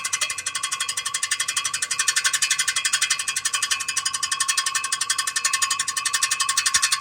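Fast, even metallic rattling and scraping from the flex plate area of a 2006 Ford F-150 with the engine running. The torque converter bolts are rubbing on metal, which the mechanic takes for a cracked flex plate.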